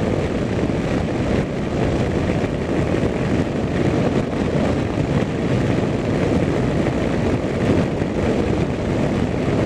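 Steady road and engine noise inside a car moving along a highway.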